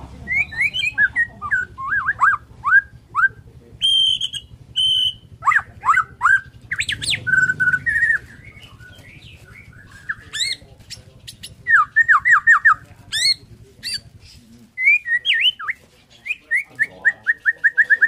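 White-rumped shama of the Bornean race (murai borneo) singing: varied clear whistled phrases of quick falling slurs and short held high notes, ending in a run of repeated notes that speeds up into a fast trill.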